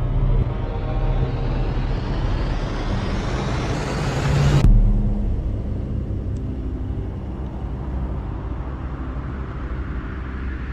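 Dark trailer soundtrack: a rising hiss swells over a low drone for about four and a half seconds, then cuts off suddenly, leaving a steady low drone.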